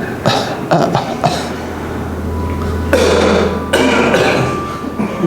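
A man coughing hard: a few short coughs in the first second or so, then two longer, harsher coughing fits about three and four seconds in. The coughing is brought on by the hypnotic suggestion that an imagined cigarette will make him cough.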